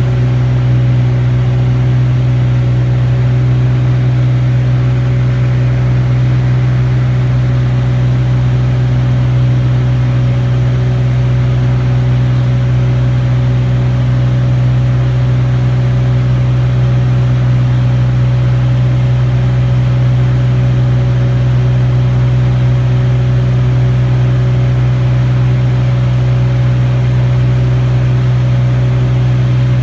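Piston aircraft engine droning steadily at one constant pitch, heard from inside the aircraft in flight.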